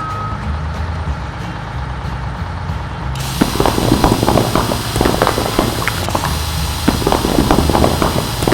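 Cartoon heavy-vehicle sound effects: a truck engine rumbling, then about three seconds in a loud hiss starts suddenly with a dense, irregular clatter of knocks over it.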